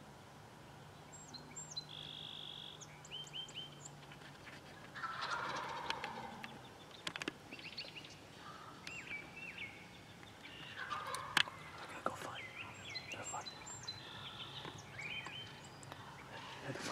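Wild turkey gobbling, a rattling call about five seconds in and again about eleven seconds in, with short high bird chirps in between.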